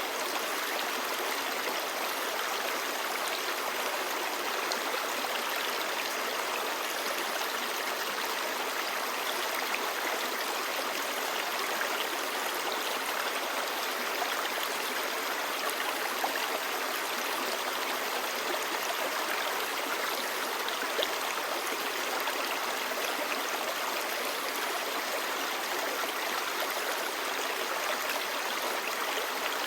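Clear stream babbling, a steady, even rush of flowing water.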